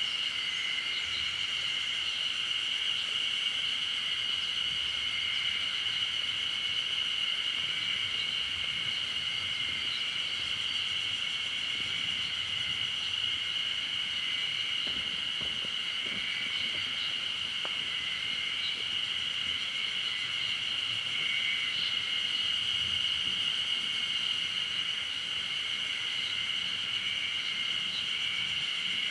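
Steady, high-pitched droning chorus of many insects.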